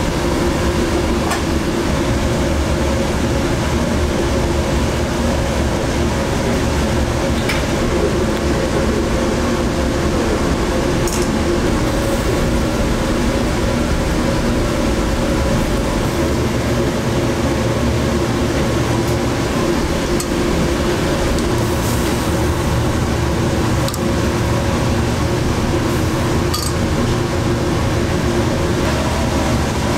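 Restaurant kitchen ambience: a loud, steady rumble and hum of kitchen machinery, with a few short clinks of metal tongs and earthenware bowls scattered through it.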